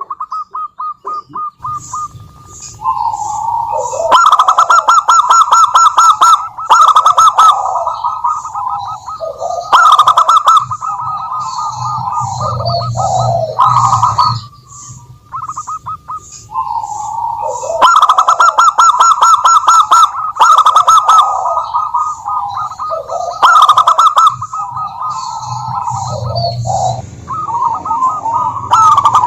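Zebra doves (perkutut) singing: rapid, staccato trilling coos, loud and overlapping, in phrases that keep breaking off and starting again.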